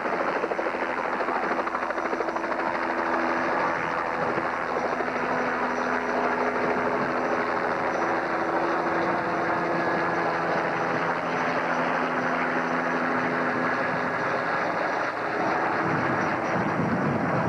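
Helicopter with a two-blade main rotor lifting off and flying low overhead: steady rotor and engine noise with a faint humming tone through the middle, turning deeper and heavier near the end as it passes directly over.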